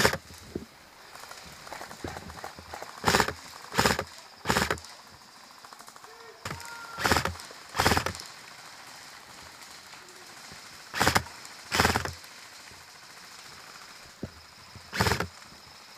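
Airsoft rifles firing short bursts: one at the start, then three about 3 to 4.5 seconds in, two near 7 to 8 seconds, two near 11 to 12 seconds, and one near 15 seconds.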